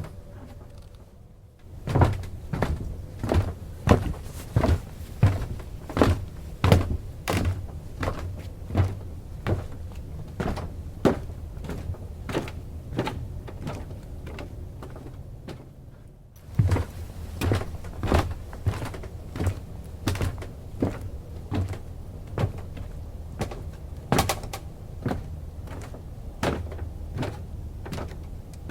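Footsteps in tennis shoes on a wooden boat dock: light wooden clunks of the boards, about two steps a second, with a short pause near the start and another about halfway through.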